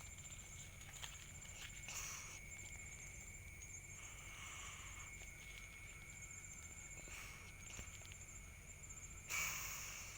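Night insects chirping steadily, one a high rapid trill and another a lower continuous tone. Short rustles break in a couple of times, the loudest near the end.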